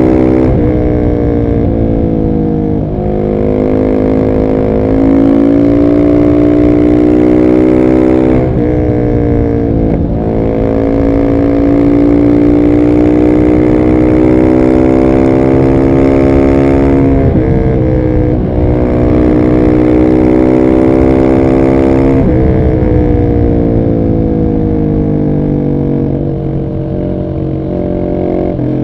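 2021 Husqvarna 701 SM's single-cylinder engine through a de-catted Arrow exhaust, pulled hard under full throttle. The pitch climbs in each gear and drops sharply at each upshift, about half a dozen times. In the last few seconds it settles to a lower, steadier run.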